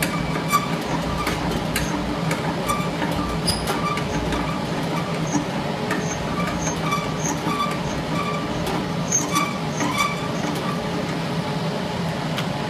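Continuous induction foil sealing machine running with a steady whirring hum. Scattered light clicks and a faint tick about twice a second run through it.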